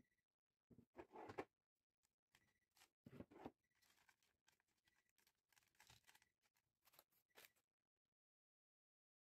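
Faint hand-handling sounds of almond crumble being sprinkled and pressed onto a chocolate-coated ice cream bar: a few soft scrapes and rustles.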